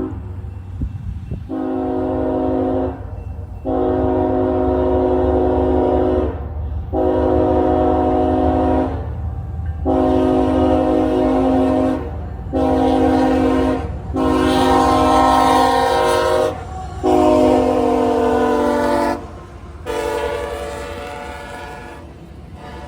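A diesel freight locomotive's multi-chime air horn sounds about eight long and short blasts, over the steady low rumble of the locomotive and train rolling by.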